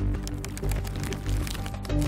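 Background music with sustained tones over a low pulsing beat, about one pulse every 0.6 seconds, with a scatter of faint clicks.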